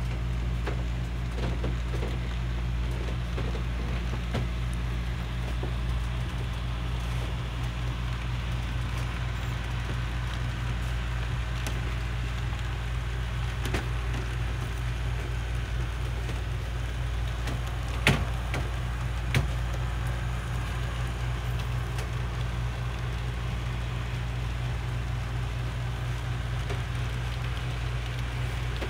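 Model diesel locomotives pulling a freight train along a model railroad: a steady running rumble and hum with the rattle of wheels on the track, and two sharp clicks a little past the middle.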